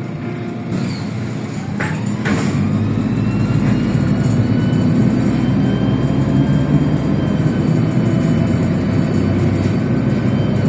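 Inside a moving MAZ-103 city bus: low engine and road rumble that grows louder a couple of seconds in as the bus gathers speed. A faint whine rises in pitch, then holds steady, with a few light clicks about two seconds in.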